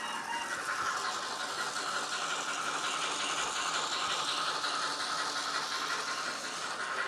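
Digital steam-locomotive sound from a Graham Farish N gauge N Class model, played by its Loksound Micro V4.0 DCC sound decoder through a tiny sugar cube speaker: a steady hissing steam-engine running sound as the model runs past.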